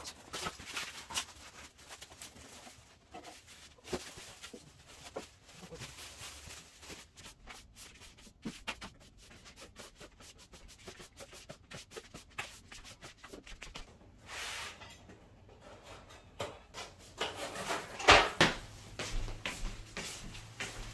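Objects being handled and moved: rubbing and scraping with many small scattered clicks and knocks, a brief rustle about fourteen seconds in, and a run of louder knocks around eighteen seconds.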